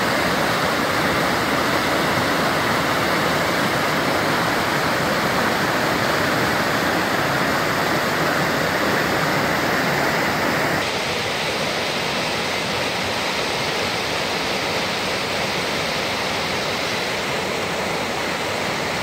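Snow-fed mountain creek rushing and cascading over rocks, a steady rush of water. About eleven seconds in it changes abruptly to a slightly quieter rush from another stretch of the creek.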